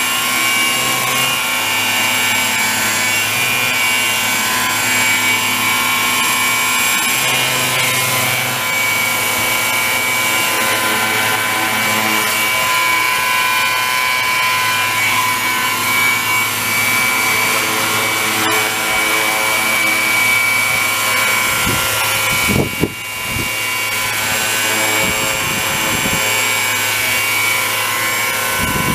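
Radio-controlled scale model EC135 helicopter hovering, its engine and spinning rotors giving a steady, high-pitched whine. Near the end there are two short low buffets.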